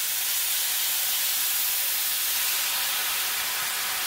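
White wine boiling on contact with a hot pan of sautéed shallots: a loud, steady sizzling hiss with steam, as the pan is deglazed.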